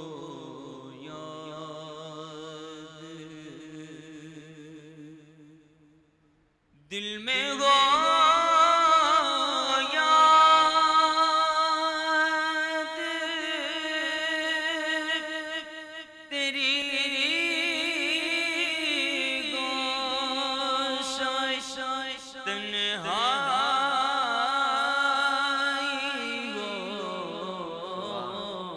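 A man singing a naat into a microphone in long, wavering, ornamented held notes. It starts softly, breaks off briefly about six seconds in, then returns much louder.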